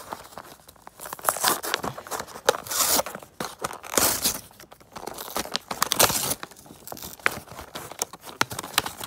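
Cardboard packaging of a diecast model truck being torn open by hand: irregular tearing and crinkling with scattered sharp clicks.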